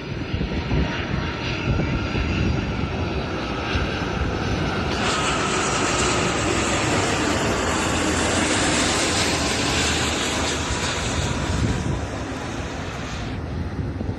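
Jet airliner passing close with engines running loud, its noise building and then falling away, with a faint whine in it.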